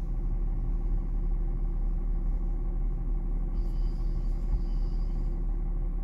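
Petrol straight-six engine idling steadily, a low even hum heard from inside the car's cabin.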